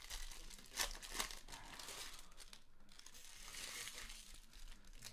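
Foil wrapper of a trading-card pack crinkling and rustling in the hands, with a couple of sharper crackles about a second in.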